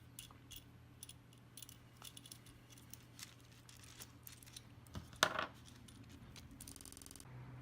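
Small metal parts of a bearing remover faintly clicking and clinking as its wing nut is unscrewed and the pieces are handled, with one louder clink about five seconds in.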